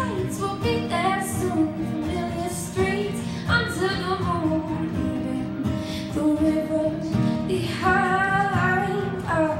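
A woman singing a song while accompanying herself on acoustic guitar, her voice holding long notes over the strummed chords.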